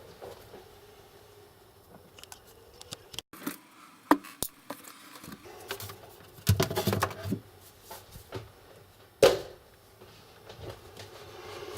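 Scattered clicks and light knocks of hands and small tools working on a laptop's plastic case and parts, with a denser clatter about six and a half seconds in and a single sharp click about nine seconds in.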